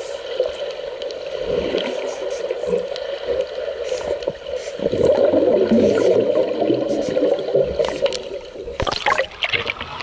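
Scratchy, uneven strokes of a paint marker dragged across paper as letters are written, with many small clicks and a sharper run of crackling about nine seconds in.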